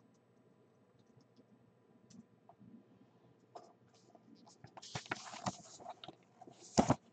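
Paper rustling as a printed sheet is handled, getting busier about five seconds in, with one sharp, loud crinkle near the end.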